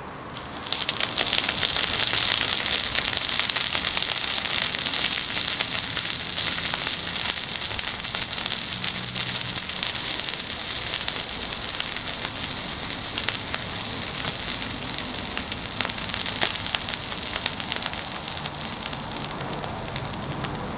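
Small waterlogged mains transformer overheating with one winding shorted, sizzling and crackling as the water in its windings boils off as steam. The sizzle starts about a second in, runs steadily with fine crackles, and stops right at the end.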